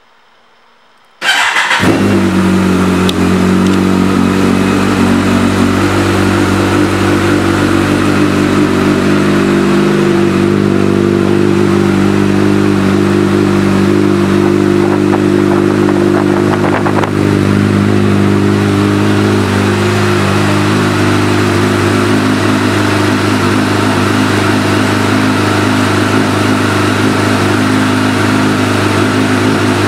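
Kawasaki ZX-14R's inline-four engine starting about a second in, then idling steadily through a Two Brothers Racing aftermarket exhaust.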